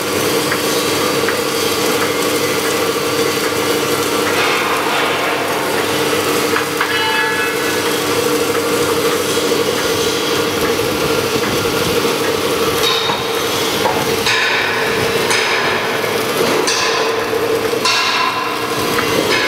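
H-beam welding line running: a steady machine hum under a dense crackling hiss, with a few sharp metallic knocks in the last several seconds.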